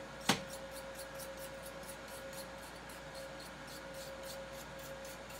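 A toothbrush scrubbing dust off graphics-card parts, a quick run of short scratchy bristle strokes, about four or five a second. A sharp click about a third of a second in is the loudest sound, and a faint steady hum runs underneath.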